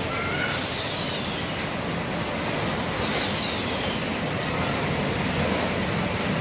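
Steady running noise of an automatic water-bottle filling and capping line. Two short hisses that fall in pitch, about half a second in and about three seconds in.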